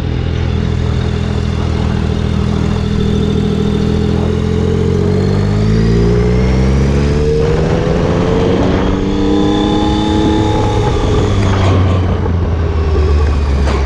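Triumph Tiger 800 XCx's three-cylinder engine running with its silencer end-can removed. It is steady at first, then rises in pitch as the bike accelerates from about four seconds in, drops back near the middle, and climbs again.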